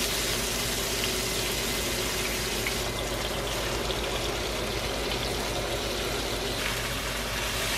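Sliced pork and aromatics sizzling steadily in hot oil in a wok as they are stir-fried.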